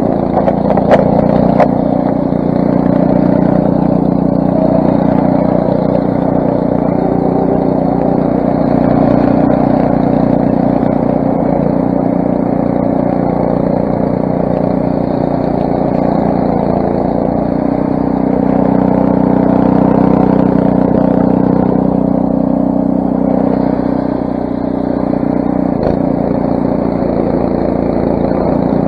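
Craftsman snowblower's 6 hp single-cylinder Briggs & Stratton engine running steadily, with a few sharp clicks about a second in.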